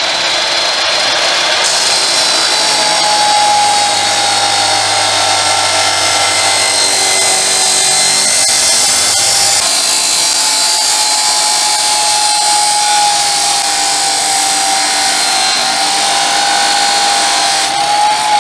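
Powerhouse cut-off machine's 355 mm abrasive wheel grinding through steel tubing, throwing sparks: a steady motor whine over a loud grinding hiss. It cuts off abruptly at the end.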